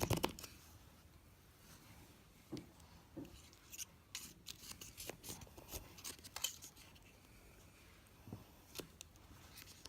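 Faint scattered clicks and short scrapes of a plastic flip phone being worked at by hand, its hinge and casing being prised and snapped.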